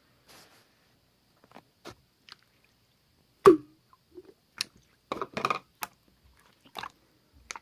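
Slime being squeezed and pressed by hand: scattered short wet clicks, pops and squelches, the loudest about three and a half seconds in and a quick run of them around five seconds in.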